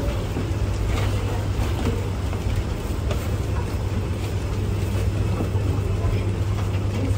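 Steady low drone of a road vehicle running, with a few faint clicks.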